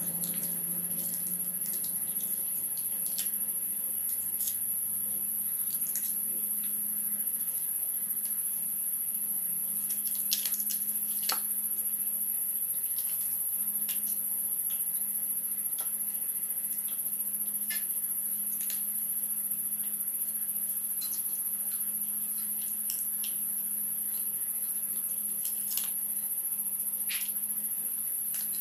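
Small scissors snipping and trimming a piece of snakehead (murrel) fish, scattered short sharp snips and wet handling of the flesh, over a steady high-pitched whine and a low hum.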